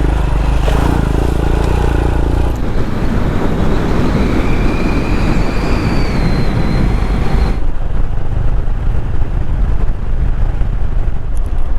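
Royal Enfield Himalayan's single-cylinder engine running under way, mixed with rushing wind noise. The sound shifts abruptly about two and a half seconds in and again about seven and a half seconds in.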